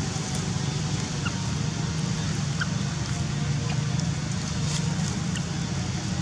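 Steady low rumbling outdoor background noise, with a few faint short high chirps scattered through it.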